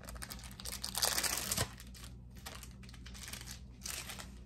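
The plastic wrapper of an individually wrapped cheese slice crinkling as it is peeled off the slice, in irregular rustles that are loudest about a second in.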